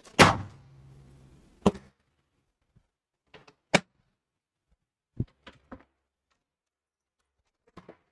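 A loud bump and rubbing on a head-worn microphone as it is handled, then a string of sharp knocks and clatters as the wearer gets up and moves off.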